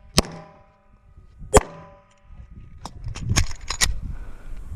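Pistol shots: two single shots about a second and a half apart, each followed by the ringing of a struck steel target, then a quick string of about five shots a little after the middle.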